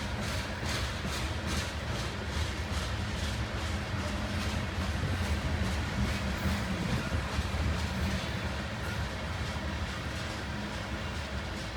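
Freight train's cars rolling past on the main line: a steady low rumble with wheels clicking over the rail joints about twice a second, the clicks fading away over the second half.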